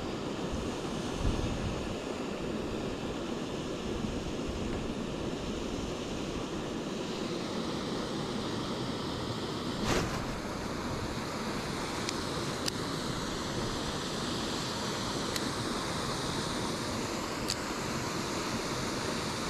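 Steady rush of water from a small weir spilling into a stream pool, with wind buffeting the microphone. A few faint sharp clicks, the loudest about a second in and about ten seconds in.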